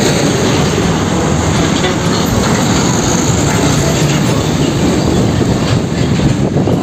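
Steady, loud running noise of a heavy vehicle, like a train or truck sound effect, with a low rumble under a dense hiss. It starts abruptly and holds unchanged throughout.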